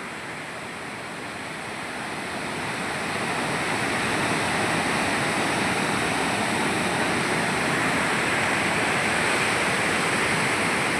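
Waterfall rushing: a steady roar of falling water that grows louder over the first few seconds, then holds even.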